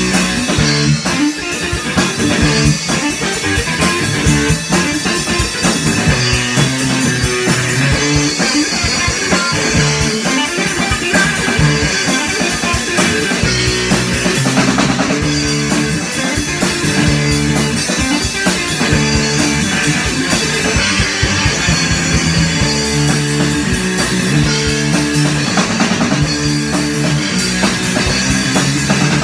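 Guitar and drum kit playing rock together, a guitar riff repeating over steady drumming with busy cymbals.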